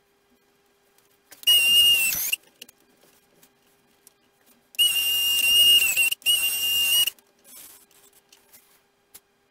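A small electric retract motor on a model jet's nose landing gear whines as the gear cycles, in three short runs of about a second each. The whine is steady and high and dips in pitch as the first run stops.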